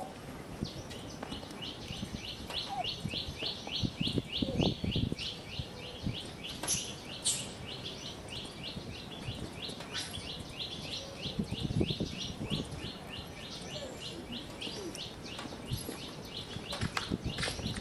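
A bird calling a long, even series of short high chirps, about four a second, over low rumbling outdoor noise that swells twice.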